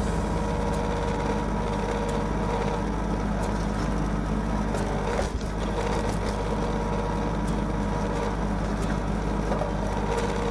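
Kubota tractor's diesel engine running steadily at a constant speed, with a few faint ticks and clicks.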